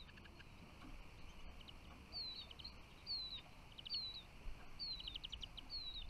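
A songbird calling: a short, high, falling whistle repeated about once a second from about two seconds in, several of them followed by a quick run of ticks.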